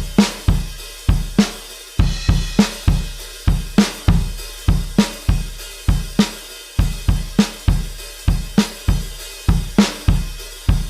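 Drum kit playing an alternative rock drum loop: kick and snare hits with hi-hat and cymbals over them, in a steady repeating beat of about three hits a second.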